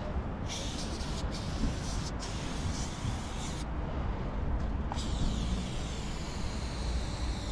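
Aerosol spray-paint can hissing in several short bursts, with a pause of about a second and a half near the middle before the hiss starts again. A steady low rumble runs underneath.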